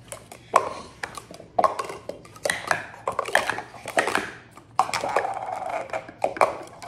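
Green Speed Stacks plastic sport-stacking cups clacking against each other and the mat as they are quickly stacked into pyramids and taken back down: a rapid, irregular run of sharp plastic clacks.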